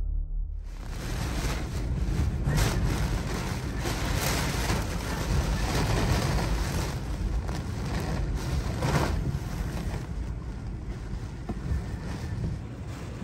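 Tropical-storm-force wind blowing hard and buffeting the microphone, with a steady roar that swells in several gusts, the strongest about a third of the way in and again past the middle.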